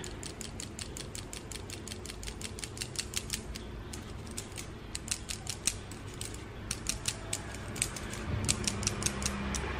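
Fine-mesh metal sieve being shaken and tapped to sift cocoa powder and cake flour: a rapid run of light ticks, about six a second, turning irregular with short pauses after about four seconds.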